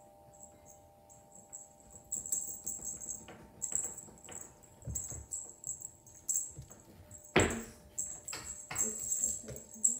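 Irregular metallic jingling as a feather wand cat toy is waved about, with light knocks and one sharp thump about seven seconds in.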